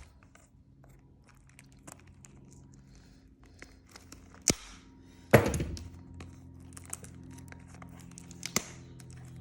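Packaging on a sealed trading-card box crinkling and tearing as it is opened, with many light clicks and a few sharp knocks, the loudest about five seconds in.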